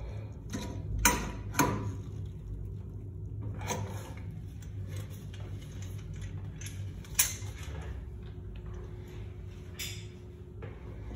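Sharp metallic clicks and knocks of a pliers wrench gripping and turning the chrome nut on a Sloan flushometer toilet valve, the loudest about a second in. Two more sharp clicks come later, and a faint steady hum starts partway through and cuts off just before the end.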